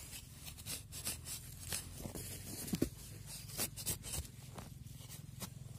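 Dry leaf litter and twigs crackling and rustling in irregular small clicks as a person shifts and reaches among them.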